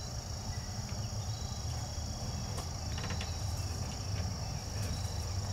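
Steady high-pitched insect chorus over a low rumble, with a few faint knocks about halfway through.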